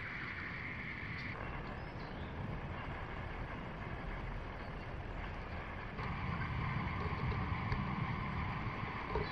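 Outdoor ambience of wind rumbling on the microphone under a faint steady high drone; the drone drops lower and the sound gets louder about six seconds in.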